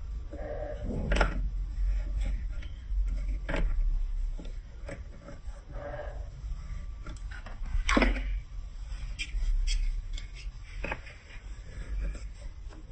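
Irregular sharp clicks and knocks of plastic marble-run building blocks and marbles, with a low hum underneath and a couple of short voice-like sounds.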